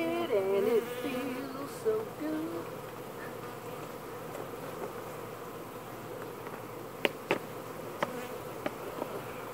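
Mass of airborne honeybees buzzing in a steady drone, stirred up as they are shaken out of bee-vacuum buckets. Brief wavering pitched sounds come in the first couple of seconds, and a few sharp knocks come about seven to nine seconds in.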